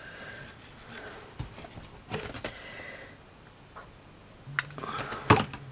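Quiet handling noises of small craft pieces, wooden sticks and chipboard, being moved and pressed into place on a table: soft rustles and light taps, with a few sharp clicks near the end.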